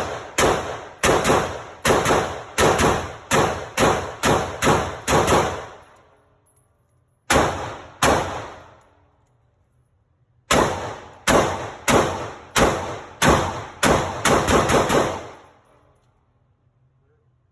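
AR-15 pistol with a 7-inch barrel firing 5.56 rounds semi-automatically, about two shots a second, each with a short ringing tail. A string of about a dozen shots, two more after a pause, then another string of about ten.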